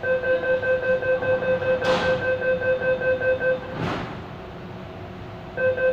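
MTR M-Train door-closing warning: a rapid beeping tone, about five beeps a second, warning that the doors are about to close. It stops about three and a half seconds in and starts again near the end. Two brief whooshes fall during the beeping, about two seconds apart.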